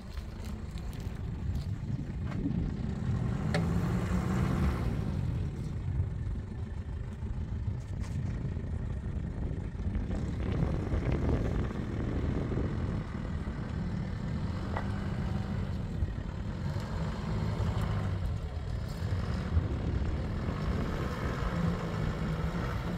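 Pickup truck engine running steadily, its revs rising at times, around 4 seconds in and again near the end.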